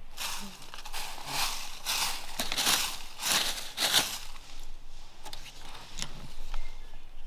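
Footsteps crunching through dry leaf litter, about two steps a second, easing off about four seconds in.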